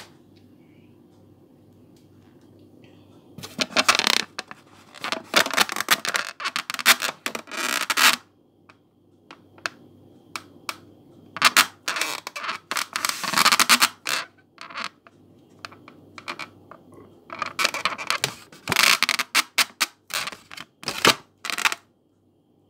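A hand scratching and scraping right beside the microphone, in three bursts of a few seconds each, separated by quiet pauses.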